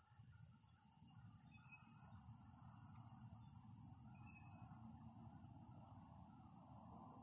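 Near silence: faint field ambience with a steady high-pitched insect buzz, which stops for a moment near the end and then resumes, over a low rumble.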